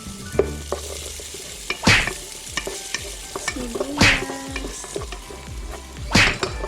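Garlic frying in melted butter in a pan, sizzling steadily, stirred in three loud strokes about two seconds apart.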